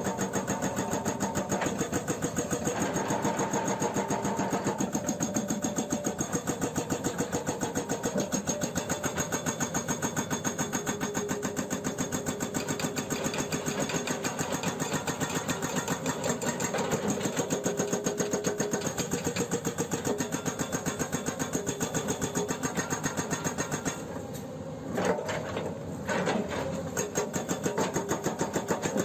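Hydraulic breaker on a Hyundai R210LC-7H excavator hammering rock in a fast, steady rapid-fire rhythm, with the excavator's engine running underneath. Near the end the hammering stops for about three seconds, leaving the engine and a few knocks, then starts again.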